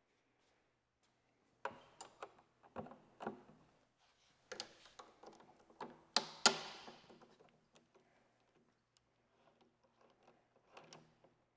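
Steel hand tools clicking and clinking on a motorcycle's fuel-tank bolt as it is undone with a wrench and a ratchet: scattered sharp clicks, with two loud ringing metallic clinks about six seconds in.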